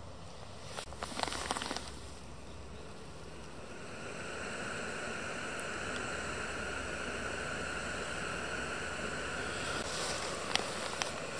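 A gas canister stove burning under a Kovea Alpine Pot Wide heat-exchanger pot of water as it comes up to the boil: a steady rushing hiss that steps up and grows louder about four seconds in. A few clicks and knocks from the pot being handled come near the start.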